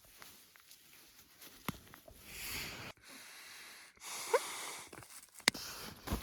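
Camping gear being handled: a few stretches of rustling and scraping, a short rising squeak, then a sharp click and a thump near the end.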